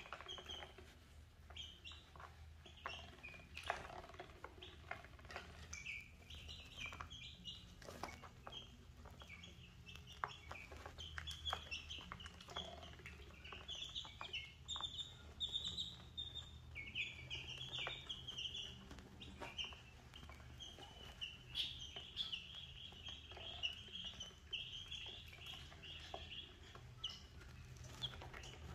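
Chicks and ducklings peeping continually in short high calls while they feed, with scattered light taps of beaks pecking crumbled feed on a plastic tray. The peeping is faint and grows busier about halfway through.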